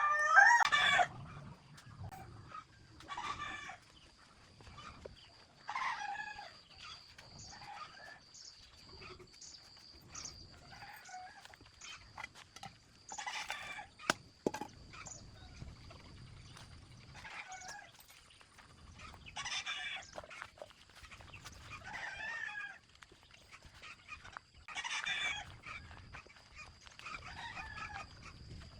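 A rooster crowing loudly right at the start, then chickens calling every two to three seconds, with a faint steady high tone throughout.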